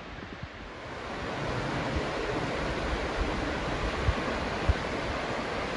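Steady rush of the fast-flowing White River, growing louder about a second in, with a few short low thumps on the microphone.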